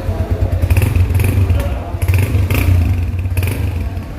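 Honda CG 150's single-cylinder four-stroke engine running, with several short throttle blips.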